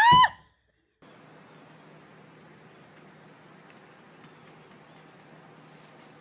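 A short, loud rising squeal that cuts off abruptly, then after a brief gap a faint steady outdoor hum with a thin high continuous whine, as of insects chirring in the vegetation.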